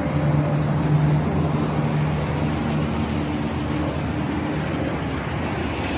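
Road traffic noise along a city street, with a steady low engine hum that does not change.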